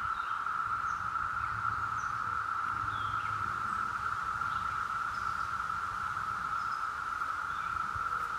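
A chorus of cicadas giving a steady, unbroken high-pitched buzz, with a few faint chirps over it.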